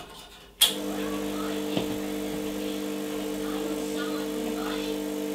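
Rancilio Silvia V3 espresso machine's vibratory pump switched on with a click about half a second in, then buzzing steadily as it pushes water through the coffee to pull a shot.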